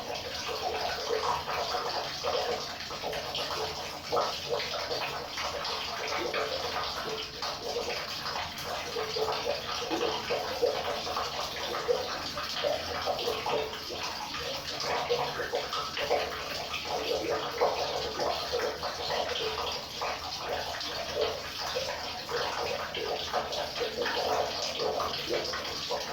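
River water flowing: a steady rush with many small splashes and gurgles.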